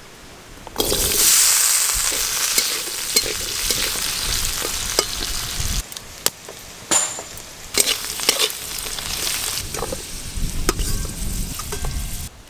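Mustard oil sizzling and hissing in a hot wok over a wood-fired stove. The sizzle stops abruptly about six seconds in, followed by scattered sharp clicks and taps.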